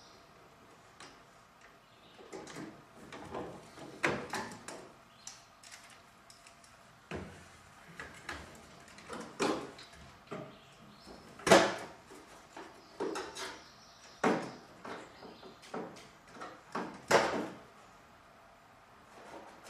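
Irregular clunks, scrapes and rattles of hand tools and parts against the metal of a car's engine bay, with the loudest knock about halfway through.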